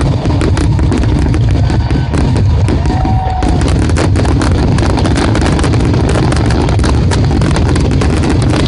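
Fireworks finale barrage: dozens of aerial shells bursting in rapid, overlapping succession, a continuous crackling and banging with a deep rumble underneath, loud and unbroken.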